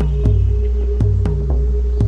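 Background music with a steady beat over a held bass note.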